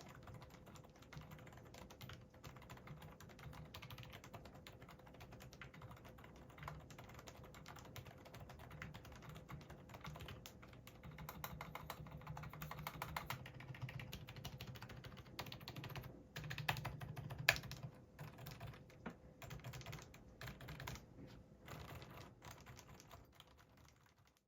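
Steady fast typing on a Hansung GK787SE OfficeMaster mechanical keyboard with Hawk 40g low-noise, non-clicky tactile switches, factory-lubricated, giving faint muffled keystrokes. One sharper, louder keystroke comes about two-thirds of the way in, and the typing stops just before the end.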